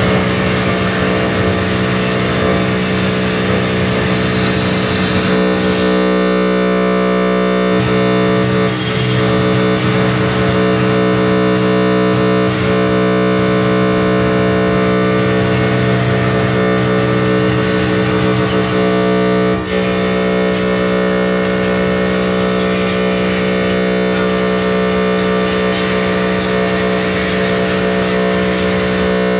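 Live electronic drone and noise music: a dense, loud bed of steady held tones with a hissing layer on top. A lower layer joins about eight seconds in, and the high hiss cuts out suddenly at about twenty seconds.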